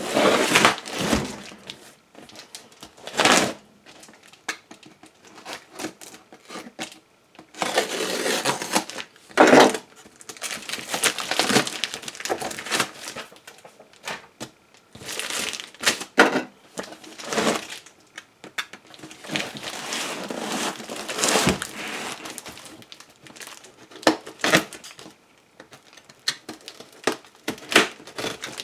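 Packaging being unwrapped and torn open by hand: irregular crinkling and tearing rustles, with occasional sharp knocks.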